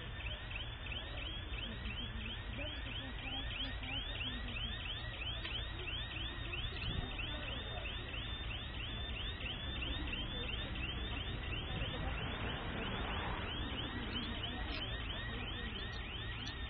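An electronic siren sounding in fast, repeated rising sweeps, about four a second, over a low rumble.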